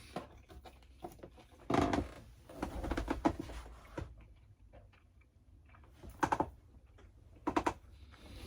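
Someone eating pizza close to the microphone: short bursts of crisp crunching and clicking from biting and chewing, four times, with quiet between.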